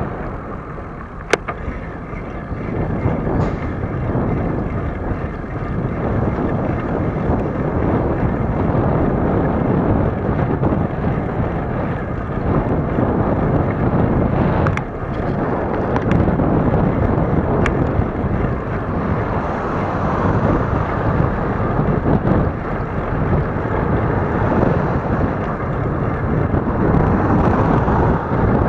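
Wind buffeting the microphone of a camera moving along a road: a steady, heavy rushing noise, with one sharp click about a second in and a few faint ticks later.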